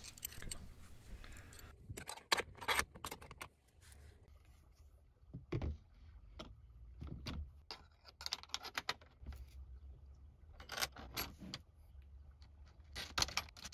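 Light metal clicks and clinks as galvanized pipe clamps and their bolts are handled and fitted into a steel unistrut bracket, coming in small clusters with pauses between.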